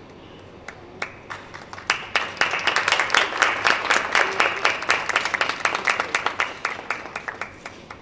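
Audience clapping: a few claps about a second in, building into steady applause, then dying away near the end.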